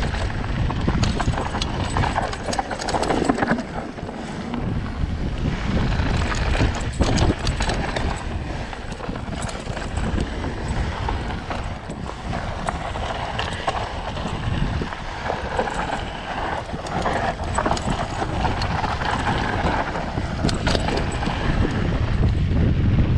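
Mountain bike rolling fast down a loose, rocky dirt trail: tyres crunching over gravel and the bike rattling and knocking over bumps many times, with wind rumbling on the microphone throughout.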